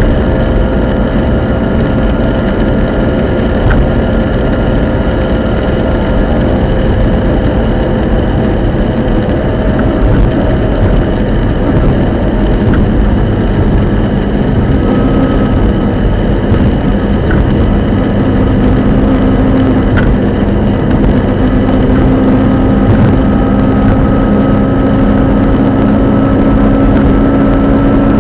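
Subaru Impreza GC8 on the move: steady drivetrain and road noise with a humming whine that grows louder and climbs slightly in pitch over the second half. This is the abnormal noise the owner puts down to the centre differential.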